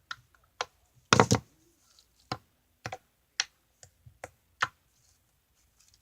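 Sticky slime being poked and squished by fingers, giving a string of short sharp clicks and pops at irregular spacing, the loudest a quick cluster about a second in.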